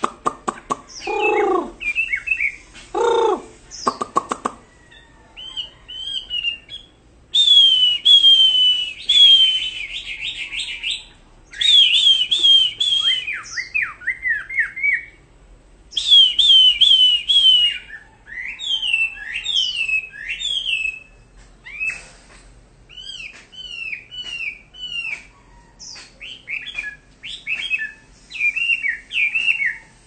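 Chinese hwamei singing: loud, varied song of clear whistled notes, quick runs of repeated notes and down-slurred whistles, with two lower mewing calls in the first few seconds.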